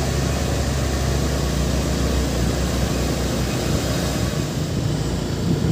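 Heavy truck's diesel engine running as it drives along. It makes a steady low hum whose note shifts a little about halfway through.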